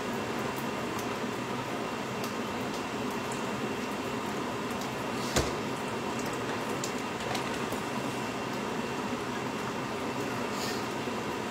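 Steady hiss from a covered pot cooking on the stove, with scattered faint crackles. One sharp click stands out about five seconds in.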